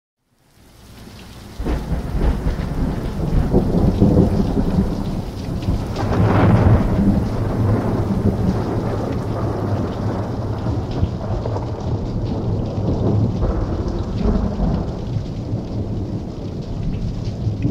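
Rain with low rolling thunder, fading in over the first two seconds and then running on steadily, with louder rumbles swelling about four and six seconds in.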